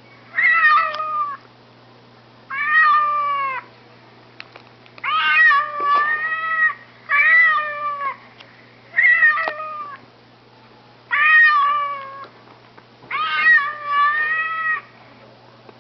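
A cat meowing about seven times, each meow a second or so long with pauses between them.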